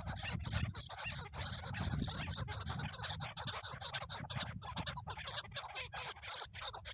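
Chukar partridges calling: a continuous, rapid run of harsh clucking calls.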